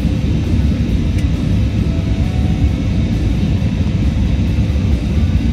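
Steady low rumble of an Airbus A320 airliner in flight, heard inside the passenger cabin: engine and airflow noise. Faint music plays underneath.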